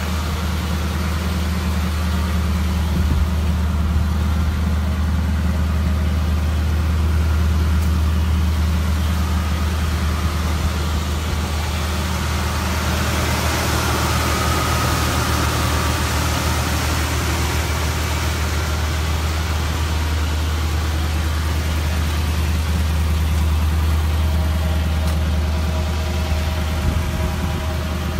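1969 Chevrolet Camaro SS's 396 big-block V8 idling steadily.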